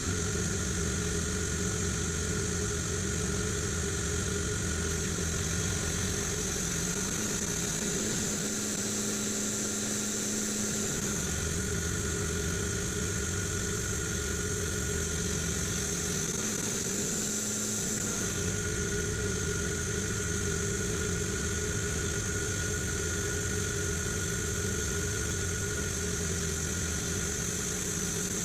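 An engine running steadily with a thin high whine over it. Its low rumble drops away briefly about a third of the way in and again a little past halfway, then comes back.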